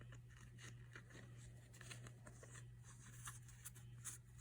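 Near silence: faint, scattered rustles and small taps from handling small items, over a low steady hum.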